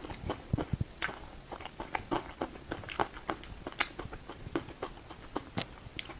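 Close-up biting and chewing of crispy ice cream, with irregular crisp cracks several times a second.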